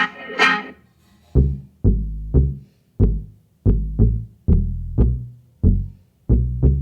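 Reggaeton-pop backing track: a short plucked, guitar-like phrase ends within the first second, then about 1.4 s in a drum-machine beat starts, with deep booming bass-drum hits and sharp snappy hits in a syncopated pattern.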